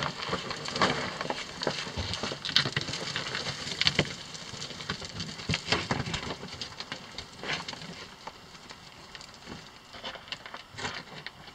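Scrambling footsteps on loose rock and gravel, with small stones trickling and clattering down. Irregular crunches and clicks, busier in the first part and thinning out near the end.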